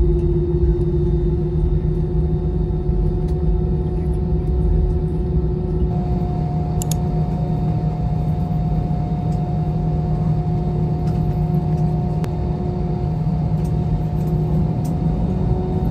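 Airliner jet engines heard from a seat inside the cabin around take-off: a loud, steady rumble with a steady low hum and fainter higher hums, the hum's pitch shifting slightly about six seconds in.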